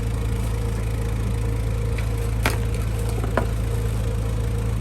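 Steady low mechanical hum, like an idling engine or machinery, with two sharp knocks a little under a second apart near the middle.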